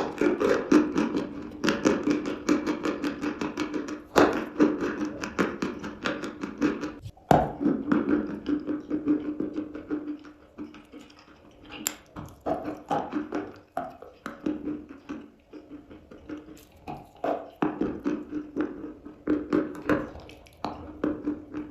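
Close-up crunching and chewing of eating chalk: rapid runs of crisp cracks and crunches, with a few sharper snaps, thinning out to sparser, quieter chewing partway through before picking up again near the end.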